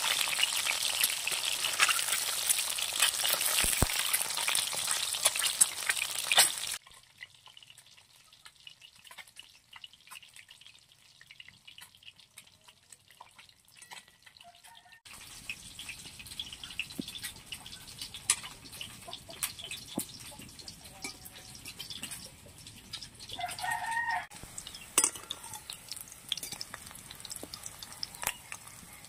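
Whole boiled eggs frying in oil in a steel wok: loud sizzling for the first six seconds or so, then quieter, with the steel spatula scraping and tapping the pan as the eggs are turned. A chicken calls once, briefly, late on.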